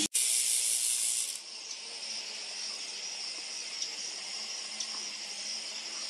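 Steady high-pitched insect drone from the surrounding forest. It is louder for about the first second and a half, then carries on evenly with faint regular pulsing.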